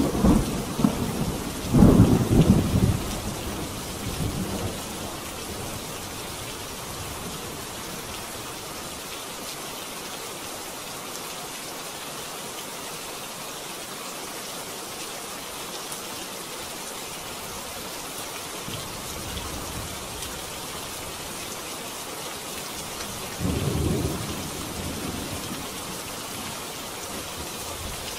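Steady heavy rain with thunder: a loud rolling rumble in the first few seconds, then a shorter, quieter rumble about three-quarters of the way through.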